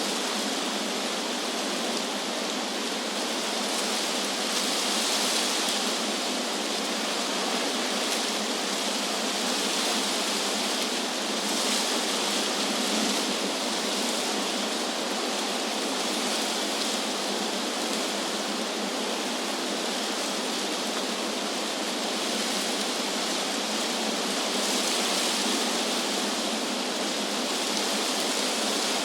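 Wind through trees: a steady rustling hiss of leaves that swells and eases every several seconds.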